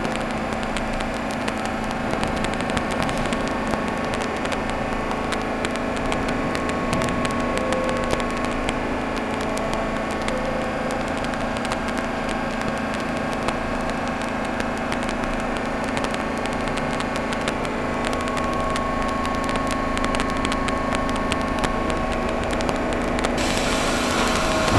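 R62 subway train standing at the platform with its doors closed, its equipment giving a steady hum with a few constant tones. A hiss comes in near the end, just before the train pulls out.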